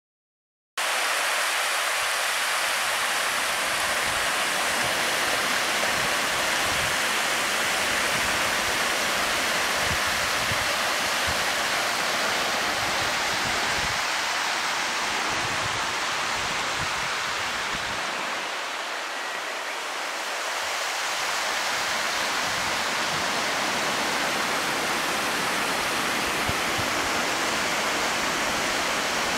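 Steady rushing of running water. It starts abruptly about a second in and holds at an even level, easing slightly for a few seconds past the middle.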